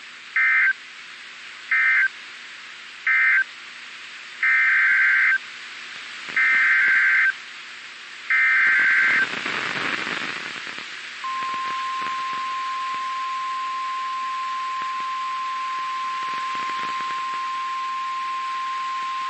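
NOAA Weather Radio EAS signalling over radio hiss. First come three short SAME end-of-message data bursts, then three longer SAME header bursts announcing the next warning. A brief swell of static follows, then the steady 1050 Hz weather radio alert tone starts about eleven seconds in and holds.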